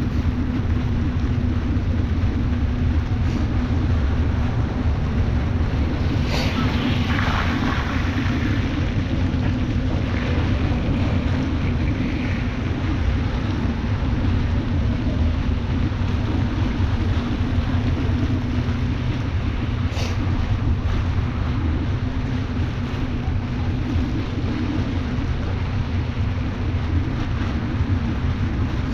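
Steady wind rush on the microphone with the hiss of rain and wet road under a moving bicycle, a low rumble throughout. A louder hissing swell rises and fades about six to nine seconds in, and a single sharp click comes about twenty seconds in.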